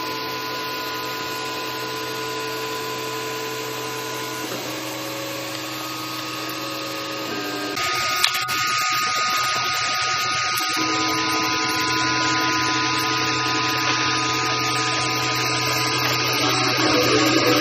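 Dual-extruder 3D printer printing: its stepper motors sing steady tones that jump to a new pitch every few seconds as the moves change, over a constant low hum. About eight seconds in, a louder hiss joins, with a single click.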